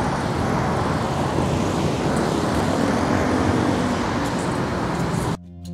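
Steady city road traffic: a continuous wash of passing cars and engines on a busy street. Near the end it cuts off abruptly into background music.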